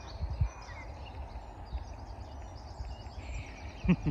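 Outdoor ambience: small birds chirping in the background over irregular low thumps on the microphone, with a short sharper knock near the end.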